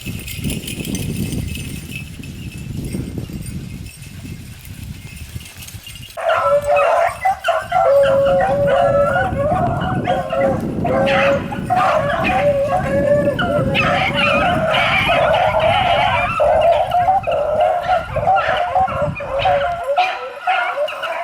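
Beagles baying and howling on a rabbit chase, the drawn-out, overlapping cries starting about six seconds in and carrying on loudly. Before that there is only low rustling noise.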